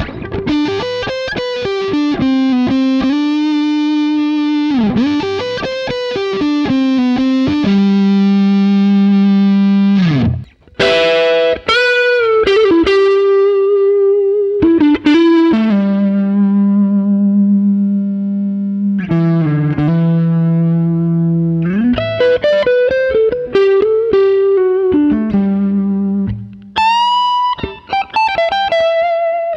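Harley Benton SC-550 Deluxe single-cut electric guitar played through an amp: a lead line of picked notes, several held and bent up and down in pitch, with a quick downward slide about ten seconds in.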